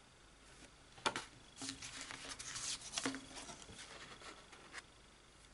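Sheets of 6x6 patterned paper, 200 g, being handled and leafed through. A sharp tap about a second in is followed by a couple of seconds of paper rustling and sliding, ending in a second tap.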